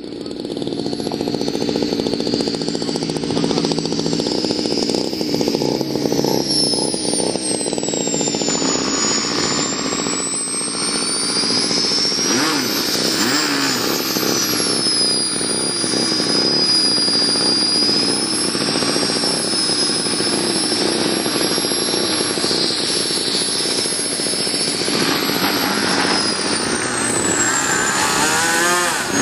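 Model-airplane glow-fuel two-stroke engine running on the ground while being tuned. Its pitch climbs over the first half as the throttle opens, holds high, then drops back near the end.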